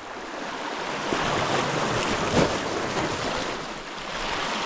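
Small waves washing over rocks at the water's edge, with wind on the microphone. The wash swells and eases, with one brief louder surge a little over two seconds in.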